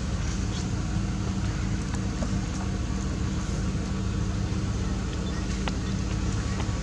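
A steady low drone with a constant hum, overlaid by a few faint clicks.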